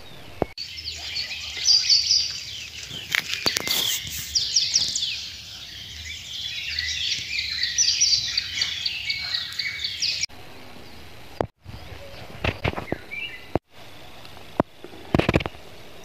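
Many birds chirping and singing at once in a dense chorus, which cuts off abruptly about ten seconds in. After that come quieter stretches with a few brief knocks.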